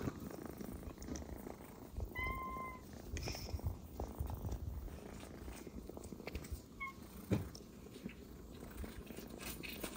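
A kitten purring faintly as its head and chin are rubbed by a hand. A short, steady high-pitched call sounds about two seconds in and a shorter one near seven seconds, followed by a small knock.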